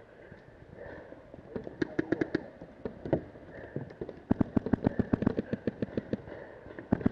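Paintball markers firing in rapid strings: a short burst about two seconds in, then a longer, louder burst of about fifteen shots, roughly ten a second, from about four seconds in, and a couple of shots near the end.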